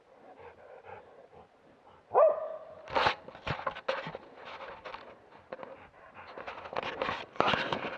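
A hunting dog gives a single sharp bark about two seconds in. It is followed by a busy run of irregular rustling and cracking noises.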